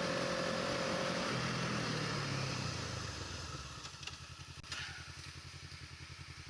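The engine of the vehicle carrying the camera eases off: its pitch drops over a couple of seconds, and it settles into a quieter, even throb of about ten pulses a second.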